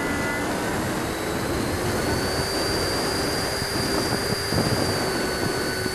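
Freewing Hawk's 70 mm electric ducted fan whining in flight under a steady rush of airflow noise, its pitch stepping up slightly about two seconds in.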